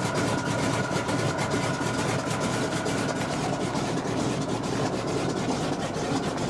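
Engine of a de Havilland Otter floatplane running steadily as the plane gets under way, heard from inside the cabin, with a faint steady whine that fades out about halfway through.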